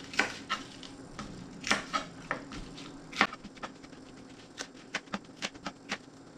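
Chef's knife cutting baby bok choy on a cutting board: an irregular run of sharp knocks as the blade goes through the stalks and hits the board, the loudest about three seconds in.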